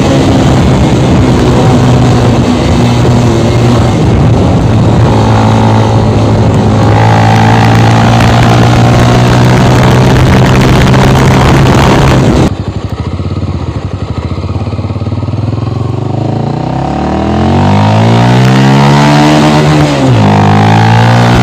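Honda CB 300 single-cylinder engine running through an aftermarket Fortuna sport exhaust, held at steady revs with wind noise over the microphone. About halfway through the sound drops off suddenly; the engine then revs up in a rising pull and drops back sharply on a gear change near the end.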